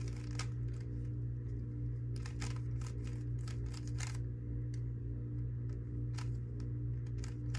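Layers of a GAN 11 Pro 3x3 speedcube being turned by hand: short runs of quick clicks with pauses between them, over a steady low hum.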